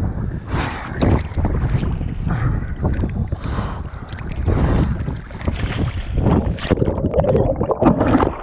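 Heavy monsoon wind buffeting the microphone in irregular gusts, with choppy water slapping and splashing around a fishing kayak.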